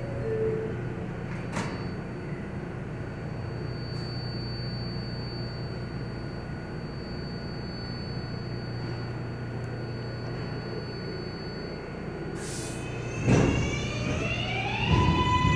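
Subway train standing at the platform with a steady hum, and a brief two-note tone near the start. About 13 seconds in the doors close with a loud knock, then the train's electric traction motors start a whine that rises in pitch and settles into a steady high tone as it begins to pull out.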